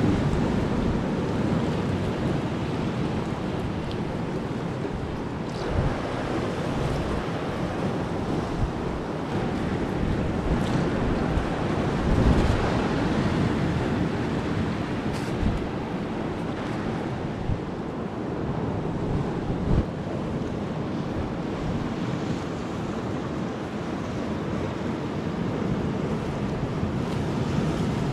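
Sea waves washing against a rocky shore, with wind buffeting the microphone and a few brief knocks.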